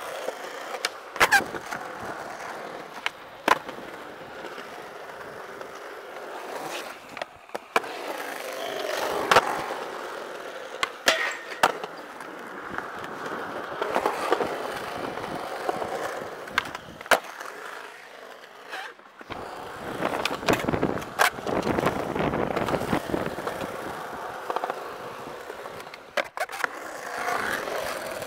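Skateboard wheels rolling on smooth concrete, the roll rising and falling with speed, broken again and again by sharp wooden clacks of the board popping off and landing tricks.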